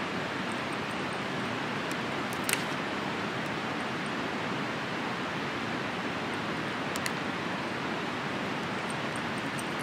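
Steady rush of a nearby mountain river, with two sharp crackles from a small twig kindling fire as it is lit and fed, about two and a half and seven seconds in.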